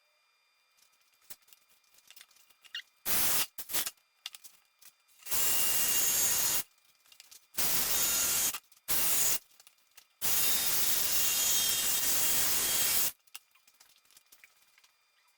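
Bursts of loud pressurised hissing: two short puffs about three seconds in, then four longer blasts, the last and longest lasting nearly three seconds.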